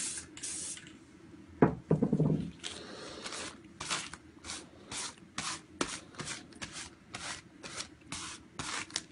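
Spray-paint work on a painting board: a quick series of short scratchy strokes, about two a second, with a brief pitched sound about two seconds in.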